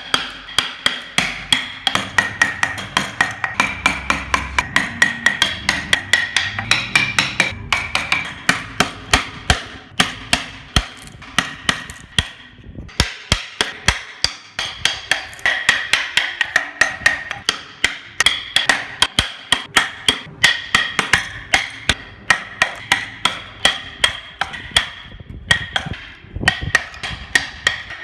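A fast, steady run of hammer blows in woodworking, several a second, with a ringing tone carried over them. The blows break off briefly about halfway through and again near the end.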